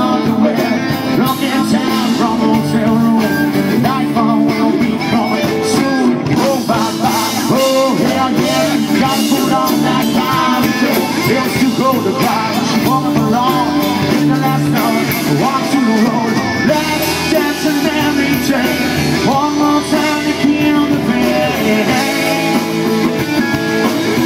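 Live rock band playing with a lead singer: electric guitars, drums and keyboard, heard continuously and steadily loud.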